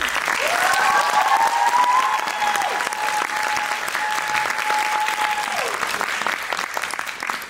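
Audience applauding after a song ends, with one long cheer that rises in pitch and is then held for several seconds. The applause thins toward the end.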